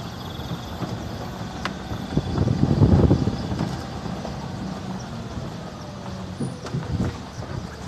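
Vehicle engine running steadily with road noise while driving, a low drone that swells to a louder rumble about three seconds in.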